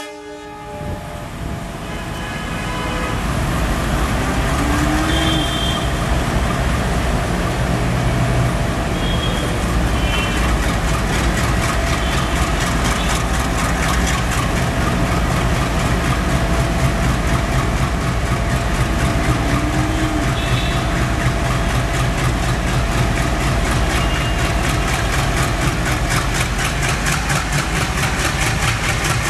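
Indian Railways WDG3A diesel locomotive, with its ALCo 251 16-cylinder engine, chugging under power as it hauls a passenger train towards the listener. It grows louder over the first few seconds, then holds a steady beat that becomes quicker and sharper near the end.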